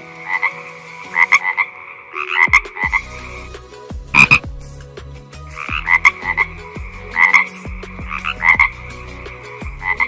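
Frogs croaking: short, rough, pulsed croaks in quick pairs and threes, repeating about once a second, with one louder croak about four seconds in. A low rumble sits underneath from a few seconds in.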